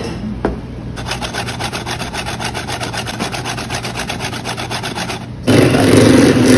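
A wire whisk scraping in rapid, even strokes against a stainless steel conical strainer as custard is worked through it. About five seconds in, an electric hand mixer starts up, louder, and runs steadily in a steel bowl.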